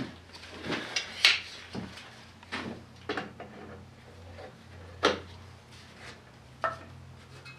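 Hand tools and engine parts being handled: a series of separate knocks and clinks, about seven, spread irregularly, over a faint low steady hum.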